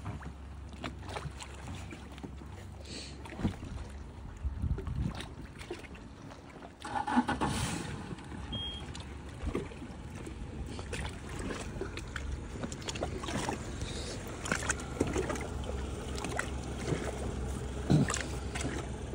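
Knocks, thuds and rustling of bags and gear being loaded into a rigid inflatable boat, with a louder knock about seven seconds in, over a steady low rumble.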